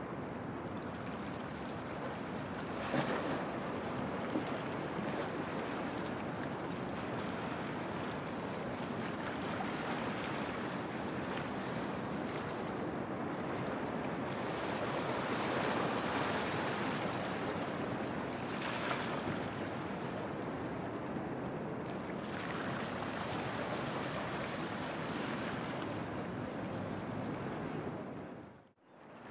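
Wind and lapping water on open water, an even rushing noise with wind buffeting the microphone, swelling in a few surges. The sound drops away briefly near the end.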